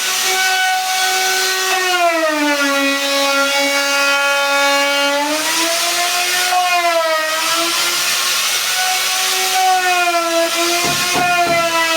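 Electric router running at high speed while flush-trimming wood along a template, its motor whine dropping in pitch as the bit takes load and rising again as the cut eases, over a hiss of cutting. A few short knocks near the end.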